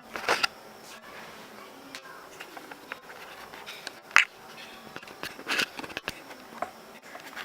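Hands handling an action figure and its packaging: scattered sharp clicks and short rustles, the loudest click about four seconds in.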